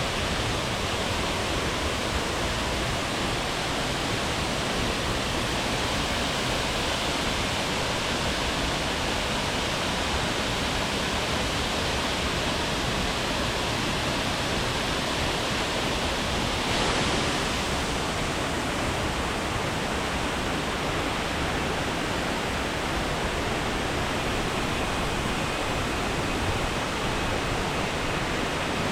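Steady rush of falling water from a jungle waterfall, with a brief swell about two-thirds of the way through. Near the end a faint, thin, steady high tone joins it.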